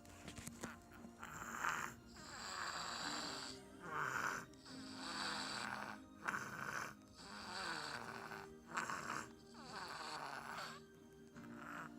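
A sleeping baby snoring, each raspy breath swelling and fading with a peak about every two seconds.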